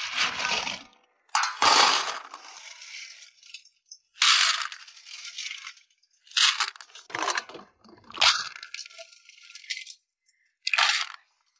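Clam and mussel shells clattering against each other and the bowl as they are washed and handled, in about six separate bursts.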